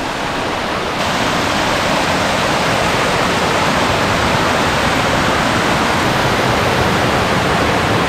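Monsoon floodwater pouring over a concrete weir and churning through the channel below it: a steady, loud rush of water that gets a little louder about a second in.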